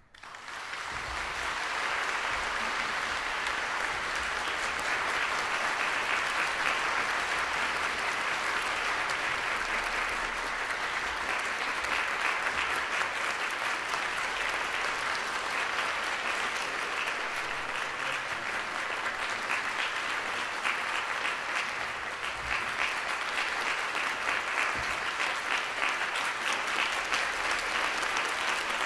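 Concert audience applauding: clapping breaks out suddenly, swells over about two seconds, then holds steady and dense.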